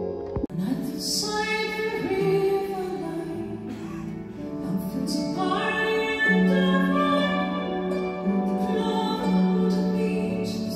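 A woman singing a slow melody in long held notes over harp and other instruments, a few seconds of a live concert performance.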